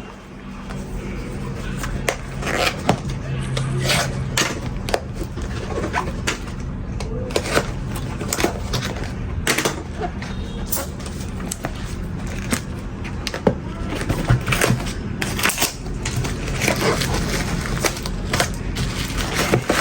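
Handling noises as parcels of Zippo lighters are unpacked: irregular clicks, knocks and rustles of packaging and metal objects being picked up and set down, over a steady low hum.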